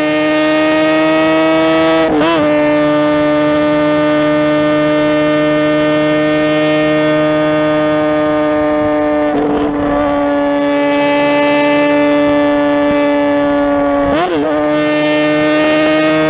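Motorcycle engine held at high revs at high speed, a steady high-pitched note that barely changes, with brief wavers about two, nine and fourteen seconds in.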